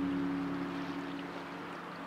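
Background music: a held chord that slowly fades away over a steady hiss.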